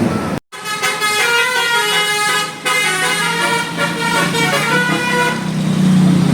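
Tour bus's multi-tone 'telolet' musical horn playing a tune of changing notes, cut off briefly about half a second in and then starting again. Near the end a lower, louder steady drone takes over.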